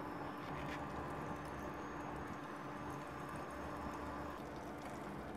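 Oil sizzling with small, scattered crackles around breadcrumb-coated corn dogs shallow-frying in a pan on an induction cooktop, over a steady electrical hum.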